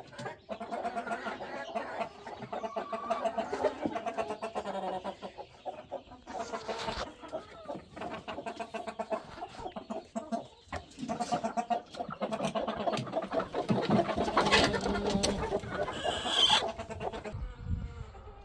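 A flock of chickens clucking continuously, many short calls overlapping, louder for a couple of seconds near the end.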